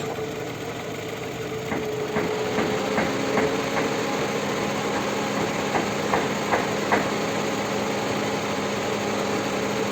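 Toyota 2AZ-FE 2.4-litre four-cylinder engine idling steadily, with scattered light clicks and knocks, while its VVT-i intake phaser is switched on from a scan tool. It keeps running instead of stalling, a sign that the VVT-i is not advancing the cam timing.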